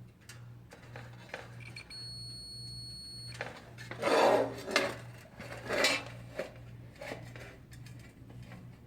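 Multimeter continuity beeper sounding a steady high beep for about a second and a half, a sign that the broken dryer heating element coil, its ends twisted back together, now conducts. Then metallic clinking and rattling as the coil wire is handled, loudest about four seconds in.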